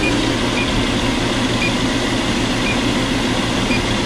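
Steady running noise of a Carrier rooftop package air-conditioning unit, its compressor and fans humming, with a faint short electronic beep about once a second from a refrigerant leak detector ticking at its idle rate.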